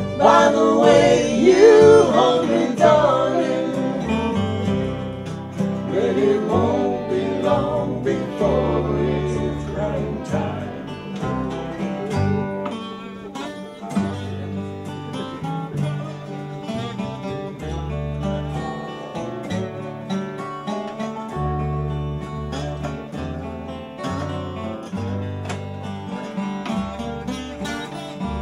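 An acoustic country string band plays live: strummed and picked acoustic guitars, a resonator guitar and a fiddle over a walking upright bass. Gliding lead notes stand out in the first several seconds, then the playing settles into steadier picked notes over the bass.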